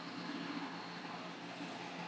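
Steady machine hum with an even fan-like hiss.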